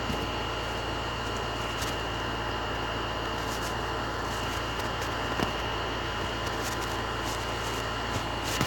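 Steady background hum and hiss with a constant high whine, and a few faint clicks.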